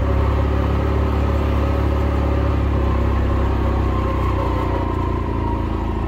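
A motor vehicle's engine running steadily at an even speed, a constant low drone that eases slightly about five seconds in.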